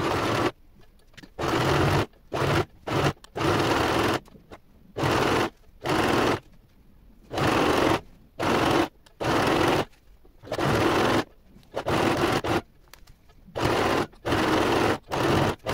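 Electric domestic sewing machine stitching a knit neckband onto a wool-knit neckline, run in many short start-stop bursts of under a second each as the fabric is guided round the curve.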